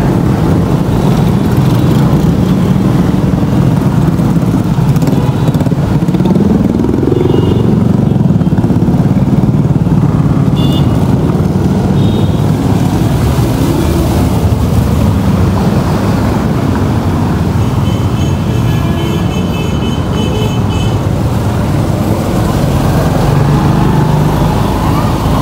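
Close engine of a small vehicle running steadily in wet street traffic, its pitch rising and falling once about six to eight seconds in.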